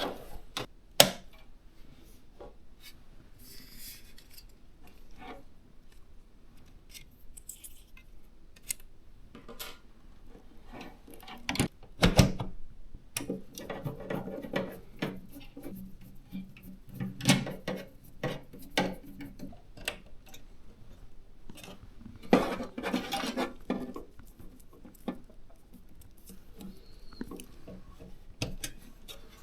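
Hands working on a PC build: scattered clicks, taps and knocks of metal and plastic parts, with a sharper knock about twelve seconds in and two spells of rubbing and scraping.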